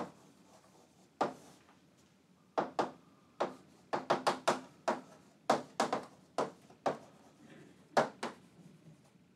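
Chalk writing on a chalkboard: a run of sharp, irregular taps and clicks, grouped in short clusters as each letter is stroked.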